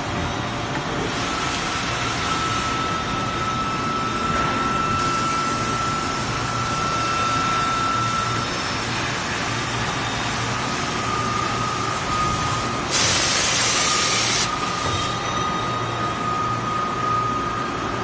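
CNC factory machinery running with a steady mechanical din and a thin, high whine; about thirteen seconds in a loud hiss cuts in for about a second and a half.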